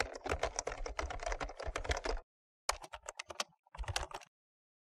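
Rapid keyboard typing clicks: a dense run of about two seconds, then two shorter runs after a brief pause, stopping about a second before the end.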